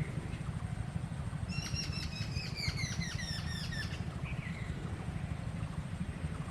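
A bird sings a quick series of short, high chirps, several a second, for about two and a half seconds starting about a second and a half in, with a single short call near the end, over a steady low rumble.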